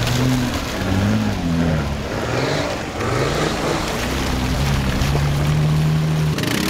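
Off-road 4x4 engines revving hard in a mud pit, the pitch rising and falling with the throttle, over the churn of muddy water under the wheels. A high rev is held for about a second before the engine note changes near the end.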